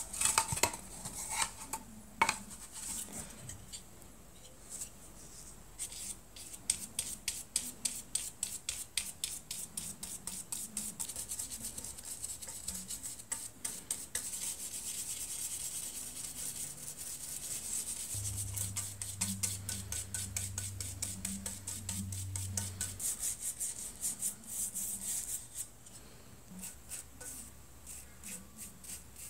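A cloth rubbing stain onto a wooden panel in quick, even back-and-forth strokes, about three a second, with a few knocks in the first seconds.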